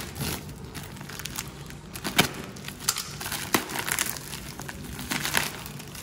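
White plastic parcel wrapping crinkling and tearing as it is pulled open by hand, with irregular crackles and a couple of sharper snaps about two and three and a half seconds in.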